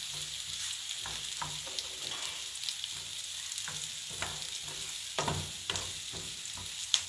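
Sliced onion sizzling in hot oil in a frying pan, with a wooden utensil scraping and tapping on the pan as the onion is stirred and pulled apart during sautéing. A cluster of louder knocks comes about five seconds in, and a sharp tap near the end.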